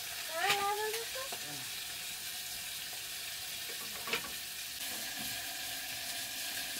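Wood fire burning in a clay hearth: a steady hissing crackle, with a sharp pop about four seconds in. A short rising voice-like sound comes about half a second in.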